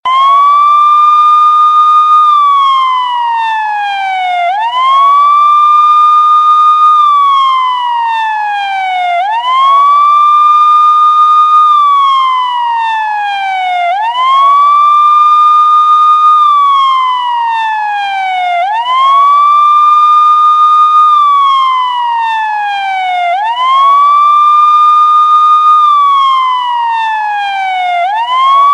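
Police siren sounding its wail: a clear tone that climbs quickly to a high note, holds it for a second or so, then slides slowly back down, repeating about every four and a half seconds.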